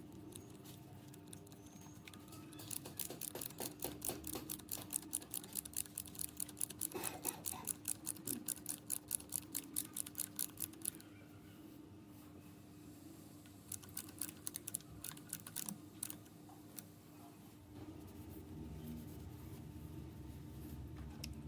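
A fast run of sharp clicks lasting about eight seconds, followed by a few scattered clicks, over a steady low hum.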